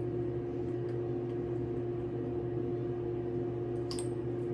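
A steady low hum holding several fixed pitches, with a few faint small clicks near the end.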